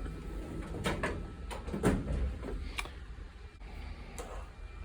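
Handling noise: a few scattered light clicks and knocks over a low steady hum.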